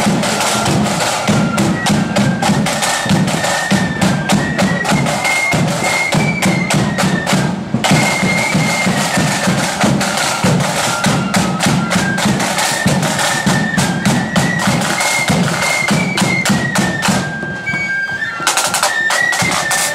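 Marching flute band playing a stepping high melody over rapid side-drum strokes and rolls. The drumming drops back for about a second shortly before the end, then comes in again.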